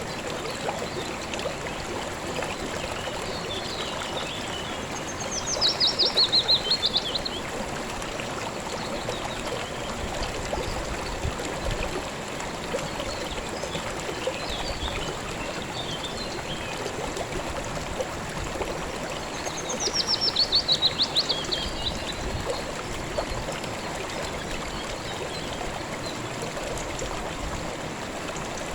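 A river or stream flowing steadily. A songbird twice sings a fast, falling trill over it, about five seconds in and again about twenty seconds in, with fainter chirps between the songs.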